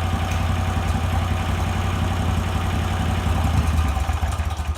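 Mini bike's V-twin engine idling steadily, then dying right at the end. It keeps running for a few seconds after the cheap key switch is turned off before it shuts down.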